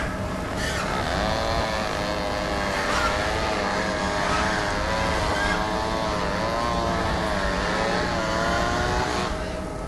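Layered horror sound-effects mix: a long, wavering, high-pitched wail or squeal that bends up and down for several seconds over a steady low engine-like drone. The wail fades out near the end.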